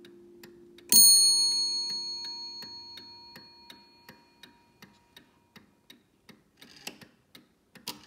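Antique Welch mantel clock ticking about three times a second. About a second in, its hammer strikes the cup bell once, a bright ring that dies away over the next two to three seconds, while a low ring from the coil gong fades out.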